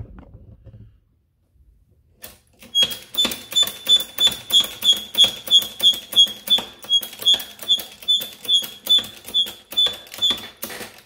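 A hydraulic shop press is being pumped to bring its ram down onto a cone punch in a coin-folding die. After a quiet start, the pump makes a steady run of sharp clicking strokes, about three a second, each with a short high ring.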